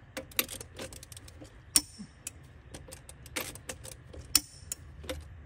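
Torque wrench ratcheting on the bus wheel-hub nuts as they are torqued one by one: irregular ratchet ticks, with a few sharper, louder clicks, the loudest about two seconds in and again past four seconds.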